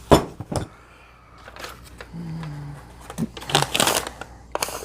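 Handling noise on a work table: a few sharp clicks near the start, a short rustle about three and a half seconds in, then more clicks near the end.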